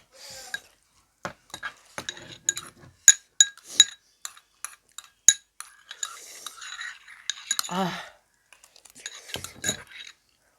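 Cutlery clinking and scraping against a plate during a meal: a string of sharp, irregular clinks with a short metallic ring, and softer scraping between them.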